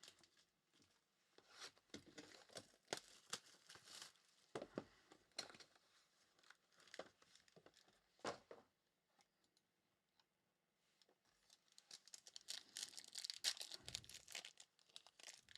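Trading-card pack wrappers being torn open and crinkled, with sharp clicks as cards are handled. After a short lull past the middle comes a longer stretch of crinkling.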